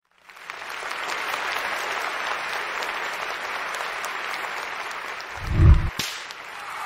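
Crowd applause fading in and then holding steady. Near the end comes one loud deep boom, followed by a sharp click.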